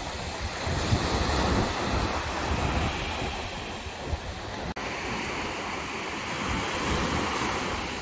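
Ocean surf breaking and washing up a sandy beach, with wind buffeting the microphone. The sound drops out for an instant about halfway through.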